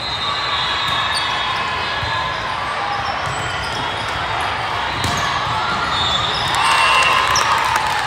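Din of a large volleyball hall: volleyballs being hit and bouncing, mixed with the chatter and shouts of many players and spectators on several courts. It grows a little louder near the end as a rally ends in a point.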